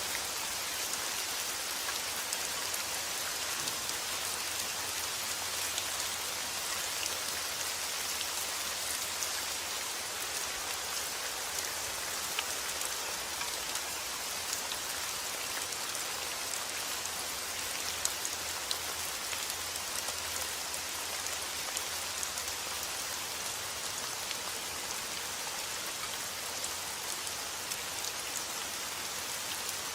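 Steady rain falling, a continuous even hiss with many small drops pattering on a surface.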